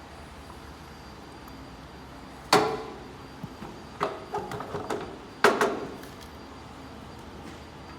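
A few sharp knocks and clatters: one loud knock about two and a half seconds in, a quick run of smaller knocks around four to five seconds in, and another loud knock just after.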